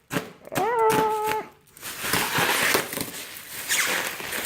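Black plastic shrink wrap and bubble wrap being cut and pulled off a washer dryer, crinkling and tearing. A short, high, steady squeak comes about a second in.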